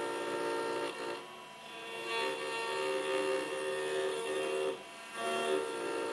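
800 W spindle of a mini 4-axis CNC router milling an aluminium cylinder turned in the rotary axis: a steady high whine with the cutter rasping on the metal. A pitched machine hum runs in passes and drops away briefly about a second in and again near five seconds, as the axes pause between moves.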